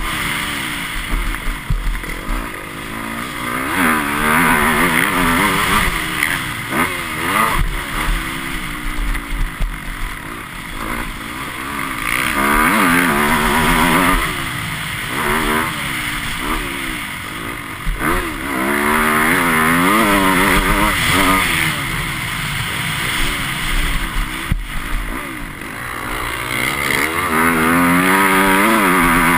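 Motocross bike's engine heard from an on-board camera, revving up and falling back over and over as the throttle is worked through jumps and turns.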